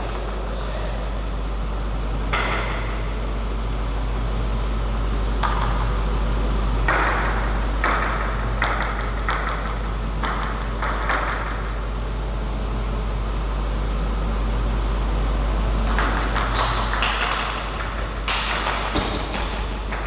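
Table tennis ball clicking back and forth between rubber bats and the table in two rallies, a longer one about seven seconds in and another near the end, with a few single ball bounces between them. A steady low hum runs underneath.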